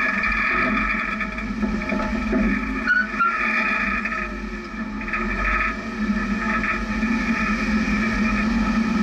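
Jeep engine running steadily as the vehicle crawls slowly over rocks, nearly at a standstill.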